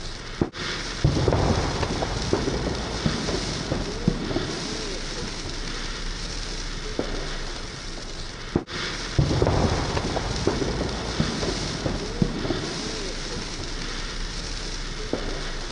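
A looped ambience sound effect: a steady rushing hiss with scattered crackles, and a low rumble that swells twice, about eight seconds apart.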